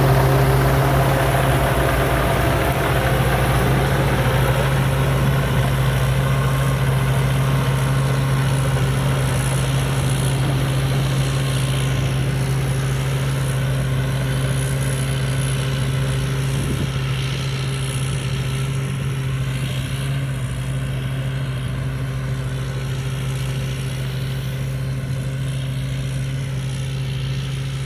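Rice combine harvester's diesel engine running steadily under load while harvesting, a constant low drone that slowly gets a little quieter.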